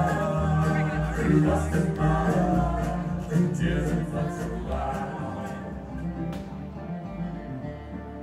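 Background music: a song with singing over a sustained bass line, getting quieter in the second half.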